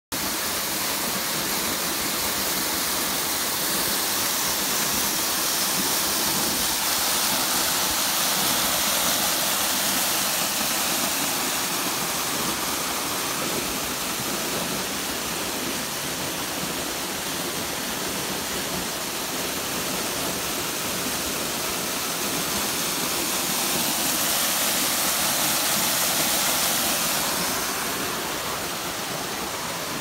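Waterfall: a steady rush of falling water, swelling twice and easing off near the end.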